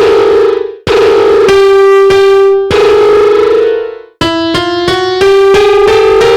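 Software piano in FL Studio playing a quick, uneven run of notes, some held and some changing several times a second, with two brief breaks about one second and about four seconds in.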